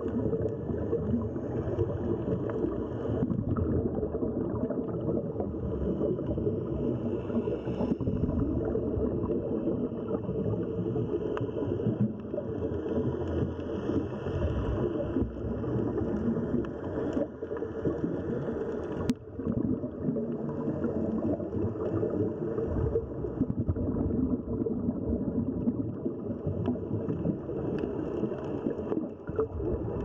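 Underwater ambience picked up through a camera's waterproof housing on a scuba dive: a steady, muffled rumble with fine crackling, and one sharp click about two-thirds of the way in.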